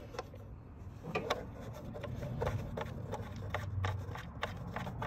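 Fingers unscrewing small hand-tight bolts on a plastic engine cover: irregular light clicks and scraping of metal and plastic, over a low steady hum.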